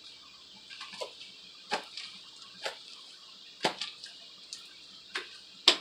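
Homemade slime being stirred by hand in a container: separate wet clicks and knocks at irregular spacing, about one or two a second, the loudest near the end, over a steady hiss.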